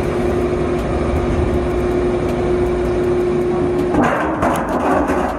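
Steel-drum lid-cutting machine running, a steady mechanical hum with a held tone. About four seconds in it gives way to harsh metal crunching as a toothed blade works on a drum.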